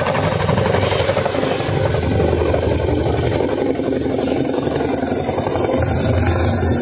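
Boeing CH-47 Chinook tandem-rotor helicopter flying low and passing close, its two rotors making a loud, fast, steady chopping beat over the engine noise.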